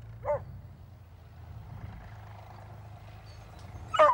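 Tractor engine running steadily at a low pitch as the tractor comes out through the gateway. Hounds give a short yelp about a third of a second in, then loud whining yelps near the end.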